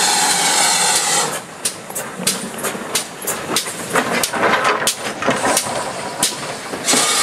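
GWR 5700-class pannier tank locomotive passing close by at low speed. A steady hiss of steam gives way, a little over a second in, to a run of irregular sharp clanks and knocks from its wheels and motion as it goes by. The steam hiss returns near the end.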